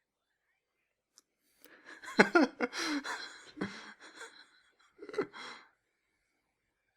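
A person's breathy vocal sounds, like gasps or sighs: a short cry that falls steeply in pitch, then breathy noise, and another brief burst a few seconds later.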